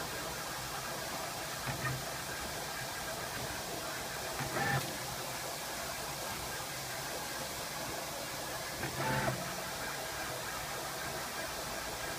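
Graphtec FC2250-60 flatbed cutting plotter cutting corrugated cardboard: a steady rushing hiss from the machine, with three brief motor whines as the cutting head moves.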